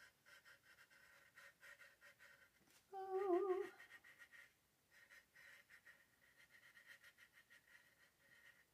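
Faint scratching and light tapping of an acrylic paint marker's tip working across a small canvas. About three seconds in, a woman gives a short hum with a wavering pitch, the loudest sound here.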